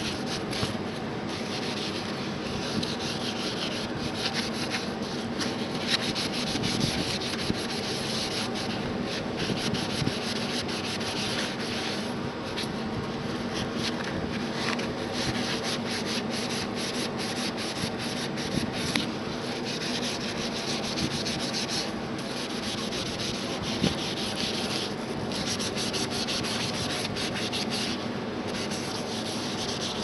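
Scouring sponge's green abrasive side scrubbed rapidly back and forth over a brass door lever and its backplate, a continuous scratchy rubbing.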